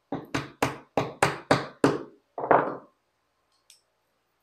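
Small hammer tapping a glued wooden toy wheel onto its wooden axle: about eight quick taps, roughly three a second, the last one a little apart about two and a half seconds in.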